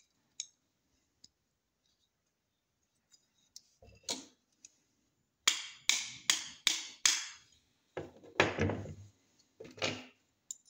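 Steel parts of a disassembled 30 bore pistol clicking and clacking as the slide and barrel are handled and fitted back together on a wooden tabletop. A few faint ticks, then a quick run of about five sharp clicks around the middle, and a heavier clatter near the end.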